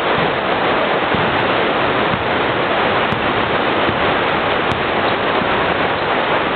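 Loud, steady wash of noise from a basketball game in a gymnasium, the players and onlookers blurred together by the hall's echo with no single bounce, squeak or voice standing out.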